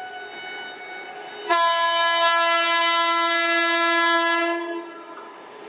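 Horn of a WAP7 electric locomotive sounding one long, steady single-pitch blast of about three seconds, starting about a second and a half in.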